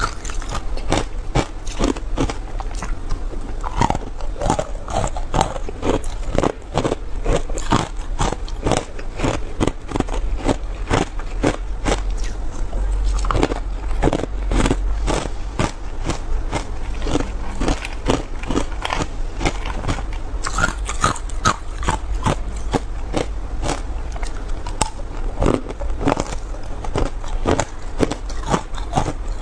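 Matcha-powder-coated ice cubes being bitten and chewed close to a clip-on microphone: a dense, continuous run of sharp cracks and crunches, several a second.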